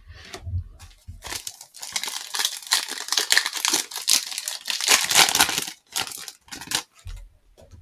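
A plastic trading-card pack wrapper being torn open and crinkled by hand, a dense crackling for about five seconds.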